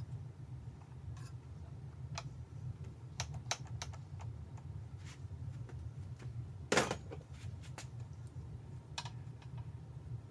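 Scattered light metallic clicks and taps from a wrench and small hand tools on the chainsaw's sprocket and chain fittings, with one louder clank about two-thirds of the way through, over a steady low hum.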